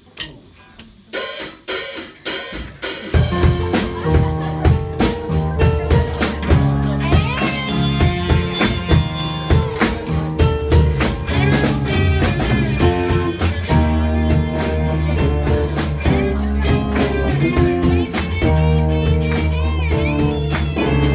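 A count-in of a few sharp clicks, then a live band with drum kit and guitar comes in playing an instrumental intro, the bass filling in about three seconds in.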